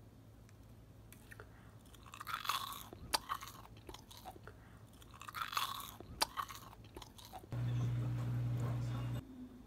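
Someone biting into and chewing a panko-breaded vegetable pork cutlet, with crisp crunching in two rounds a few seconds apart. Near the end, a steady low hum comes in for about a second and a half and stops.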